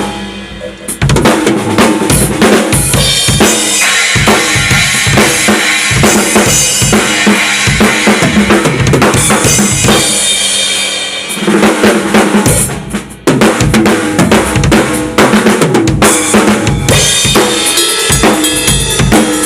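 Drum kit played in a steady beat, with bass drum, snare and cymbals. It eases off briefly about a second in, fades near thirteen seconds, then comes back in hard.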